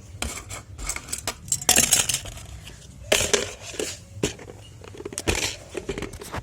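Clear homemade slime being squeezed and poked by hand: a string of crackly, clicking squishes, with a loud burst about two seconds in and more near three and five seconds in.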